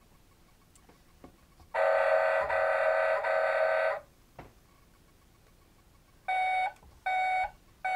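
Electronic sound effects from a Tonka Town Sanitation Vehicle toy truck's speaker: a steady electronic tone lasting about two seconds, a single click, and then evenly spaced short beeps starting near the end, about three of them.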